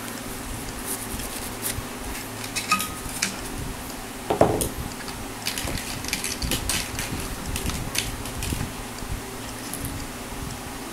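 Light metallic clicks and taps as an Ibanez S520 electric guitar's strings are threaded and wound at the headstock tuners, with one louder knock and short ring about four seconds in. A steady electric fan hum runs underneath.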